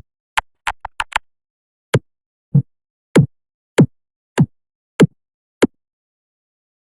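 A string of short electronic blips, each dropping quickly in pitch like a plop or a drum hit: a fast cluster of five in the first second, then seven evenly spaced about every 0.6 s.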